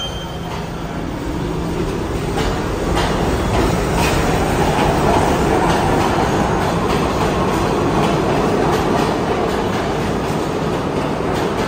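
R68 subway train pulling out along the platform of an underground station and gathering speed. Its running rumble grows over the first few seconds and then holds, with the wheels clicking over rail joints now and then.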